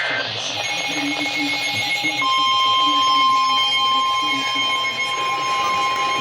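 Emergency weather alert attention tone: a fainter steady tone comes in within the first second, then a loud, steady, high-pitched electronic tone joins about two seconds in. It signals that a new warning is about to be read.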